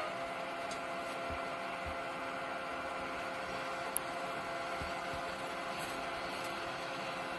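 Engines of UNAC 300RR² road-rail brush cutters running steadily as the machines manoeuvre, a drone with a few steady tones over low rumble. A single sharp click about four seconds in.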